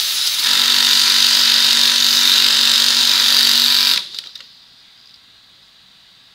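AMF automatic pattern sewing machine with a Pfaff sewing head running at speed, a loud steady whir with a high hiss. It stops abruptly about four seconds in, followed by a few clicks and then a faint steady hum.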